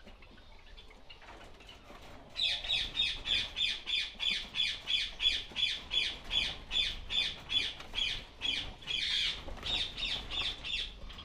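Java sparrow calling a fast, regular series of short, sharp chirps, about three a second. The run starts about two seconds in and lasts about eight seconds, over faint chatter from other finches in the aviary.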